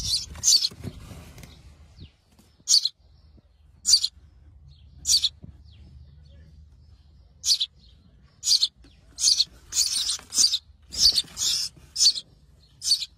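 Nestling songbirds chirping with short, high calls, spaced a second or so apart at first and coming in quicker runs near the end.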